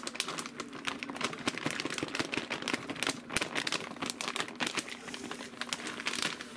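A plastic bag of dry bacon bits crinkling as the bits are shaken out into a bowl: a dense run of small clicks and rustles.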